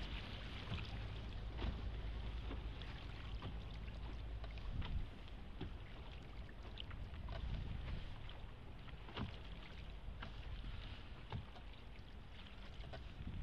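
Small rowing boat gliding through calm water under oar: water lapping and splashing at the hull, with scattered small splashes and drips over a steady low rumble.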